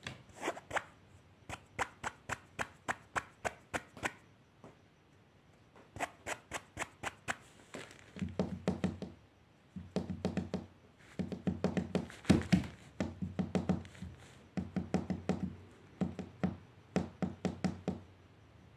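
A cat making quick rhythmic clicks and taps, about four a second, in bursts of one to three seconds with short pauses. From about eight seconds in the taps carry a duller thud.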